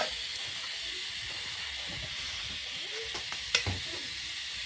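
Steady sizzling hiss of food cooking in a pot on a wood-fired stove, with a few sharp clicks, one louder about three and a half seconds in.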